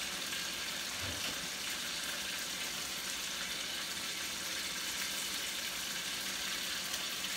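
Sautéed steak topped with blue cheese and green onions sizzling steadily in a frying pan on the stove.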